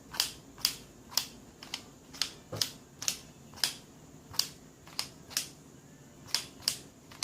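Sliding-puzzle pieces being pushed along the tray, each clicking sharply into place as its small magnet catches, about fourteen clicks at an uneven pace of roughly two a second.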